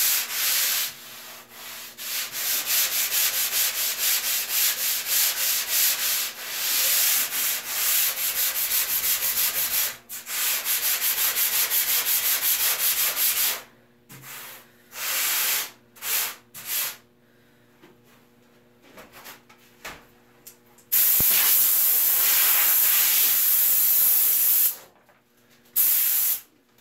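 Hand-sanding the foam bottom of a surfboard blank with a sanding block to shape the channels: fast back-and-forth rubbing strokes for about thirteen seconds, then a few shorter strokes and a quiet stretch. Near the end, masking tape is peeled off the board in one long steady rip and a short second pull.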